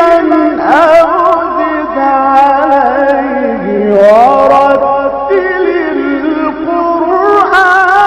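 A man's voice reciting the Quran in the melodic, drawn-out tajweed style, holding long notes and ornamenting them with quick melodic runs that climb about halfway through.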